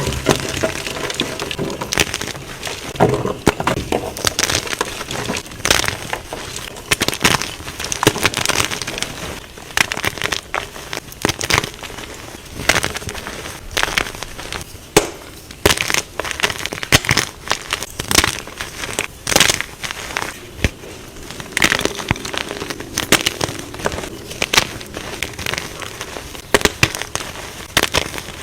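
Something crumbly being crushed: dense, irregular crunching and crackling with many sharp cracks.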